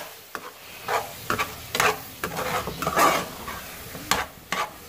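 Metal spoon stirring and scraping thick carrot halwa as it fries in ghee in a nonstick saucepan, with sharp clicks where the spoon strikes the pan roughly once a second. This is the bhunai stage, where the halwa is stirred without a break so it doesn't stick to the bottom.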